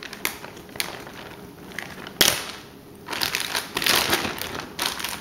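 Plastic zip-top freezer bag crinkling as hands press the air out of it. There is a sharp crackle about two seconds in, and the crinkling gets denser near the end.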